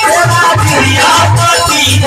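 Live Indian devotional music: a harmonium and a dholak drum keeping a steady beat, with jingling hand percussion and a man singing.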